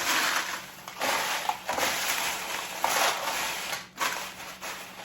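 A bowl of dry Cheerios, corn Chex and cashews being stirred and tossed by hand: crunchy rustling swishes, about one stroke a second.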